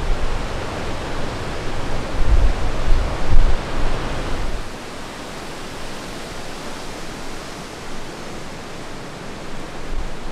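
Strong wind gusting and buffeting the microphone with a deep rumble, which drops away about four and a half seconds in, leaving a steady rushing hiss of wind.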